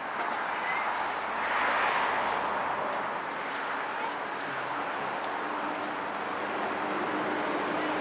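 Outdoor background noise: a steady hiss that swells about two seconds in, with a faint steady hum joining near the end.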